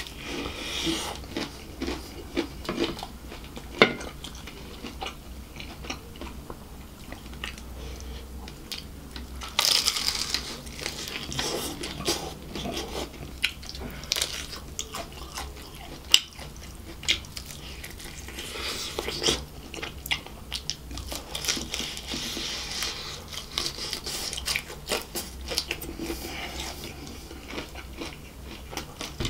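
Close-miked biting and chewing of crispy fried chicken: the crispy coating crackles and crunches between the teeth in irregular bursts, with a few sharp, loud crunches.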